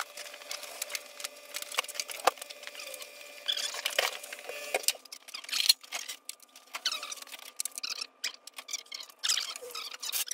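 Irregular clicks, clinks and squeaks of hand tools and metal parts being handled as an engine is fitted onto a go-kart frame.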